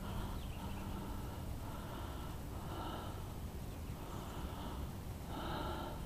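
A person breathing audibly close to the microphone, a soft breath sound about once a second, over a faint steady low hum.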